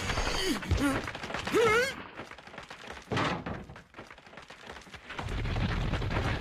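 Cartoon sound effects: a short rising cry in the first two seconds, a dull thud about three seconds in, then a steady low rumble for the last second or so.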